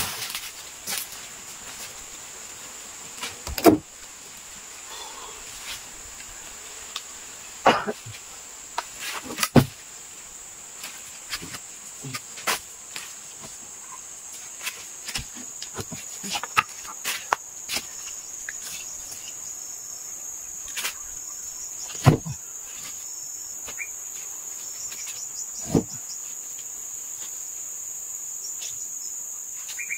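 Steady high-pitched insect drone, with scattered sharp knocks and thumps every few seconds, the loudest about 22 seconds in.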